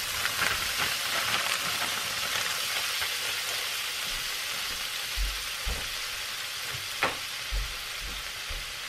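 Broccoli florets sizzling in a frying pan of hot fat and garlic, a steady hiss loudest just after they go in and easing off slowly. A couple of light knocks near the end.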